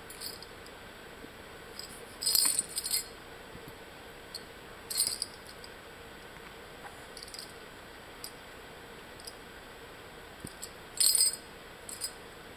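A small jingling rattle shaken in short bursts, about five times, with quiet between them.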